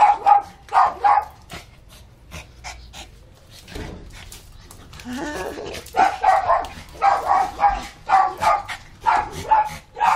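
Small fluffy dog barking in quick, high yaps, two or three a second. The barking stops for a few seconds in the middle and starts again about six seconds in.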